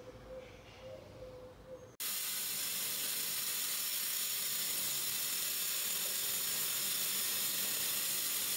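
A steady, even hiss starts abruptly about two seconds in, after a quiet opening with a faint pulsing tone.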